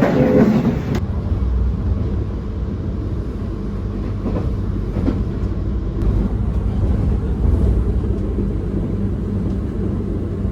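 Passenger train running: a short stretch of rail clatter that cuts off about a second in, then a steady low rumble and hum with a few faint knocks.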